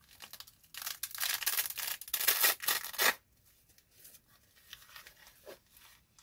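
Hook-and-loop (Velcro) flap of a nylon knife pouch being torn open: a ragged ripping from about one second in to about three seconds in, then faint rustling of the fabric as the pouch is handled.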